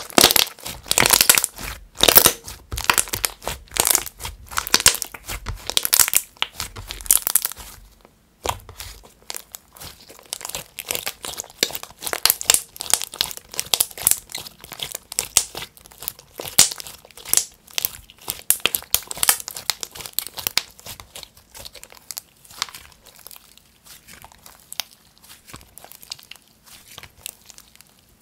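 Thick clay-mixed slime being squeezed, folded and stretched by hand, making a dense run of small crackles and squelches. The sounds are loudest in the first eight seconds, then pause briefly and carry on more softly.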